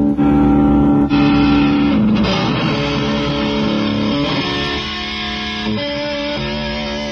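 Schecter C1 electric guitar played through a small Blackstar ID:Core combo amp, with held chords ringing and changing every second or two. The tone turns brighter about two seconds in.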